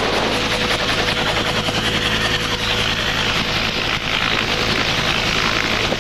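A helicopter's turbine engine and main rotor running steadily at flight RPM, with a fast, even beat of the rotor blades, heard inside the cabin with the side door open.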